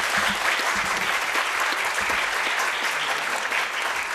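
Large audience applauding, a steady, even round of clapping.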